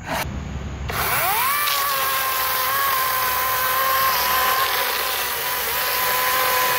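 A short click, then about a second in the electric motor of a Greenworks 40-volt GMax brushless cordless chainsaw spins up with a rising whine and runs at a steady pitch while the chain cuts down through a log.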